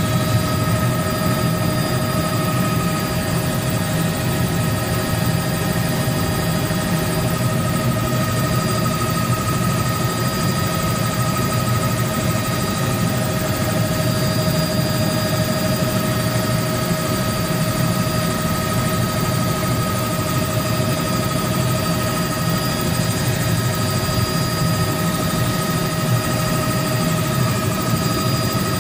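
Helicopter in flight heard from inside the cabin: a steady drone of rotor and engine, with a constant high whine over it.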